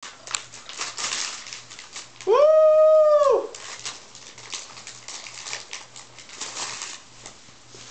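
Wrapping paper crinkling and tearing in a poodle's teeth as it tugs at a gift, with rustling in short bursts throughout. About two seconds in, one long high-pitched whine, lasting a little over a second and gliding up at the start and down at the end, is the loudest sound.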